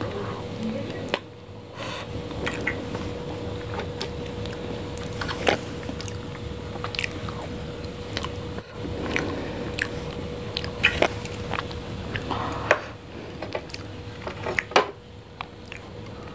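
Close-miked chewing of soft chocolate cream cake, wet and sticky mouth sounds with many sharp clicks and smacks. A steady faint hum runs underneath.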